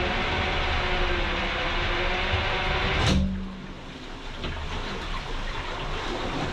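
Freewheeling sailboat propeller turning the Yanmar saildrive with the engine off, a steady whirring hum. About three seconds in there is a clunk, the hum stops and the sound drops to a quieter rush as the propeller is feathered.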